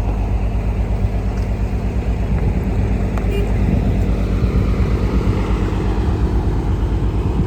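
An off-road vehicle's engine running on a rough track: a steady low drone with an uneven, pulsing rumble.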